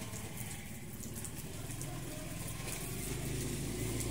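Water spraying from a garden hose and splattering onto a python and the wet ground around it, over a steady low hum.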